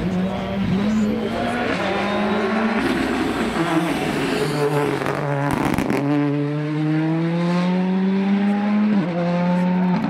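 Ford Fiesta rally car passing at full throttle, its engine climbing in pitch through the gears. It changes gear about halfway through, climbs steadily again, and upshifts about a second before the end.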